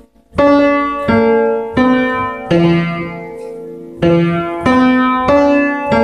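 Upright piano played slowly, notes struck about every two-thirds of a second and left ringing, with one held longer midway through.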